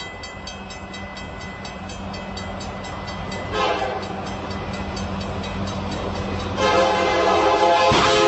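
Level-crossing warning signal ringing in a fast, even rhythm as a train approaches. The train's horn sounds a short blast about three and a half seconds in, then a long blast from near seven seconds, and a crash of impact comes at about eight seconds as the train strikes the lorry on the crossing.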